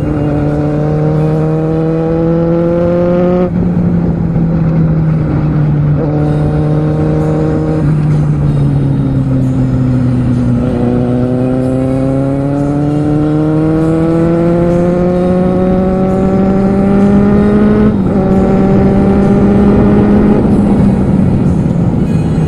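Kawasaki Z750R's inline-four engine pulling through the gears on the move. The pitch climbs and drops at a gear change about three and a half seconds in, sags as the throttle eases off a few seconds later, then climbs steadily for about seven seconds before another shift near the end.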